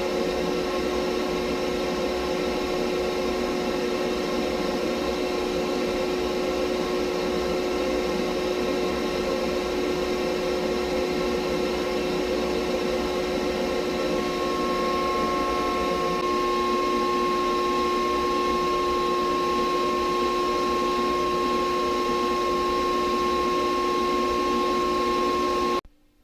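Vacuum cleaner running steadily while its hose carries goose down into a quilt's baffles: a constant motor hum, with a second, higher whine joining about halfway through. It cuts off abruptly shortly before the end.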